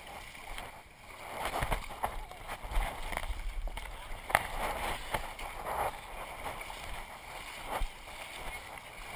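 Water splashing and sloshing as legs wade through a shallow stream, with a few sharper splashes, the loudest about four seconds in and again near the end.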